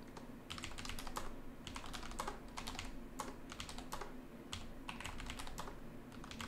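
Typing on a computer keyboard: an uneven run of key clicks, several a second.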